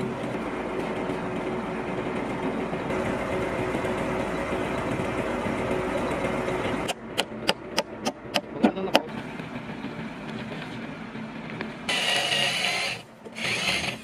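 A power tool runs steadily, then a hammer strikes wood about eight times in quick succession. Near the end an electric drill with a spade bit bores into timber in two short bursts.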